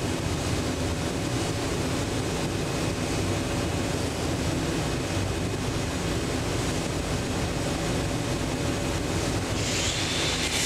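Steady hiss and low rumble of a welding booth during a TIG pass on a 2-inch carbon-steel pipe coupon. About ten seconds in, a brighter, higher hiss joins it.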